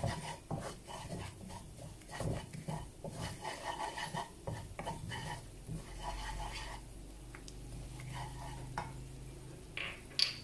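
Wooden spatula stirring and scraping a sticky paste around a non-stick wok, in quick irregular strokes that grow fewer and softer after about six seconds.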